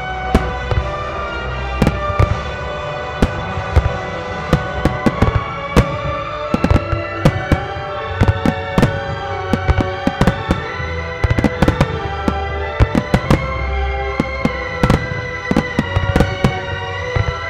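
Aerial firework shells bursting in quick, irregular succession, dozens of sharp bangs, some in tight clusters, while classical music plays throughout.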